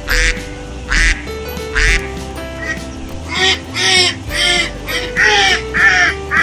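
Ducks quacking over background music: single quacks about once a second at first, then a quicker run of quacks from about three seconds in.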